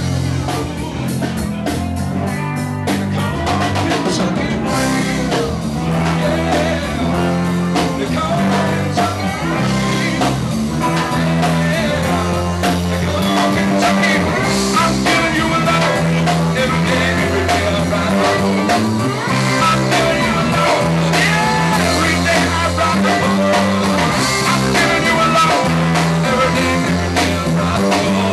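Live rock band playing: drum kit, electric bass, electric guitar and keyboards, with a male singer on a microphone.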